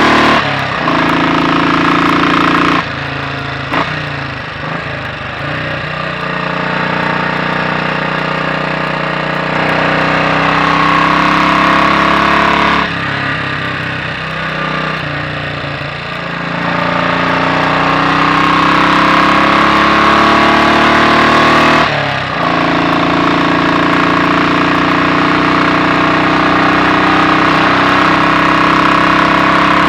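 Royal Enfield Bullet 500's single-cylinder four-stroke engine on the road, its inlet cam retarded by one tooth. The engine note rises in pitch under throttle, drops sharply at throttle lifts or gear changes about three, thirteen and twenty-two seconds in, then climbs again.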